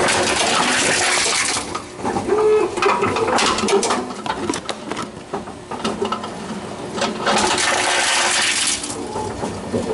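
Tomra reverse vending machine taking in returned containers: two long rushing, clattering runs, one at the start and one about seven seconds in, with scattered clicks and knocks of containers moving through it in between.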